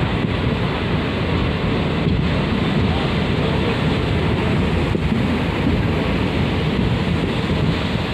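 Wind buffeting the microphone over the steady rumble of a DEMU (diesel-electric multiple unit) train running along the track, heard from its open door.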